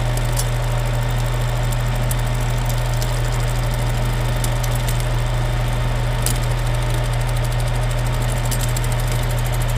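Metal lathe running under cut as the tool turns down a clamped stack of ultra-thin shim laminates: a steady machine hum with scattered sharp crunching clicks as individual laminates break off, layer after layer.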